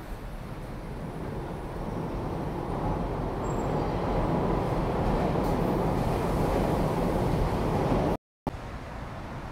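Noisy rumble of a passing vehicle, growing steadily louder over several seconds, then breaking off abruptly for an instant near the end and coming back quieter.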